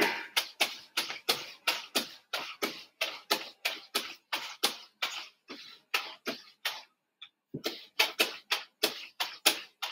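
A steady run of sharp knocks, about three a second, each dying away quickly, with a short break around seven seconds in.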